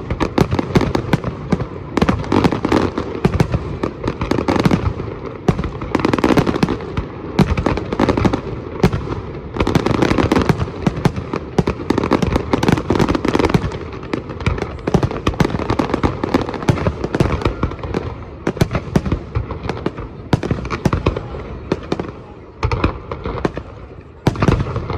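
Fireworks display: a dense, continuous run of bangs and crackling pops, thinning slightly near the end.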